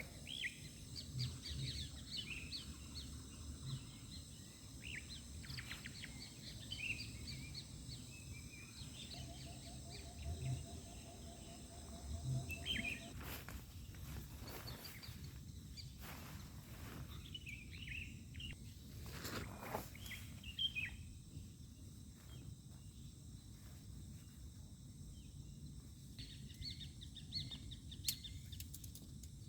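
Outdoor night ambience: scattered short chirping calls from small animals over a steady high insect whine and a low background rumble, with a couple of soft knocks.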